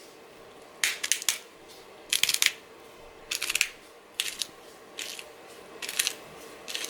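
Hand pepper mill grinding black peppercorns in short twists: about seven brief grinding bursts, roughly a second apart.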